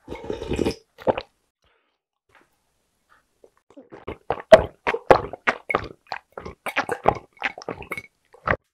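A short slurp of soup broth from a ladle, then, from about three and a half seconds in, a quick run of gulps and swallows while drinking water from a glass.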